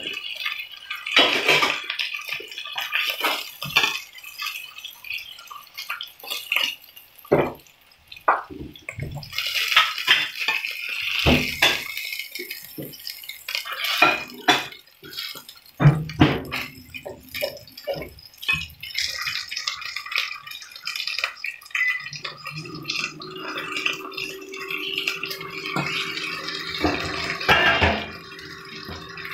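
Striploin steak sizzling and spitting in hot oil in a frying pan, with a metal fork clicking and scraping against the pan as the pieces are turned and lifted out. The sizzle turns to a steadier hiss in the second half, and a low steady hum comes in about three-quarters of the way through.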